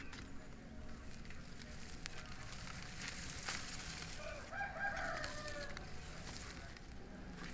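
A rooster crowing once, faintly, about four and a half seconds in, over a low steady background hiss with a few light clicks.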